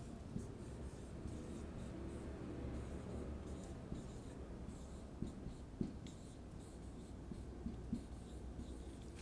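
Marker writing on a whiteboard: faint scratching strokes with a few light taps of the tip against the board.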